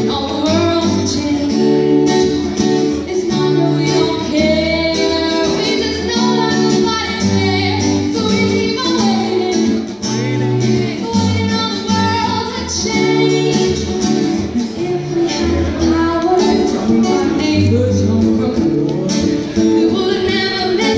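A woman singing a melody into a microphone, accompanied by strummed guitar, performed live through a PA.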